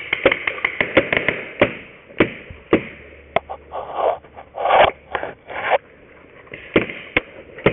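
Paintball markers firing: a quick, irregular string of sharp pops over the first second and a half, a few more single pops near the end. In between comes a stretch of scraping and rustling.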